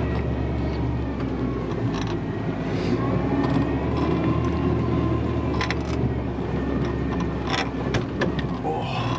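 Jeep Wrangler driving off-road over rough, muddy ground, heard from inside the cab: a steady engine hum with clattering from the vehicle, and a few sharp knocks in the second half.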